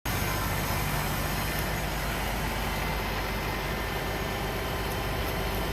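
Fire apparatus diesel engine idling, a steady low rumble under constant outdoor noise.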